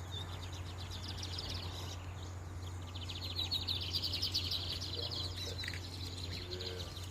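Caged competition songbird singing a fast, high-pitched trilled song of rapidly repeated notes, strongest from about three seconds in. A steady low hum runs underneath.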